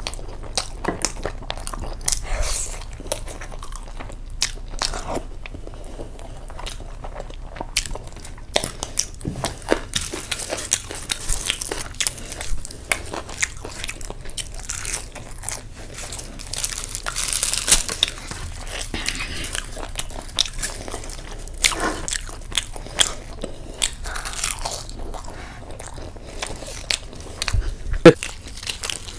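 Eating sounds: biting and chewing butter chicken and butter naan, with crunches and wet mouth clicks. Near the end the naan is torn by hand, with one sharp louder click.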